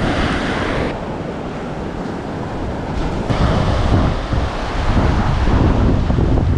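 Wind buffeting the microphone over the steady wash of breaking surf, the wind rumble gusting louder in the second half.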